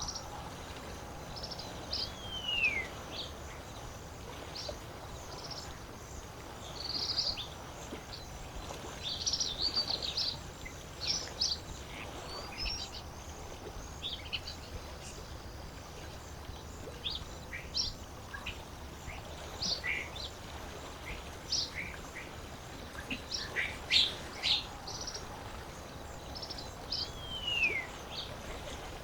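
Wild birds calling by a lake: many short chirps and call notes throughout, with a clear falling whistle about two seconds in and again near the end, over a steady low background noise.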